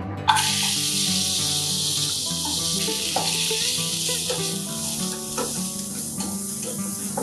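Pieces of drumstick (moringa pods) hitting hot oil in a non-stick wok: a sudden loud sizzle about a third of a second in that carries on as a steady frying hiss. The pieces are stirred with a wooden spatula, which knocks and scrapes against the pan a few times.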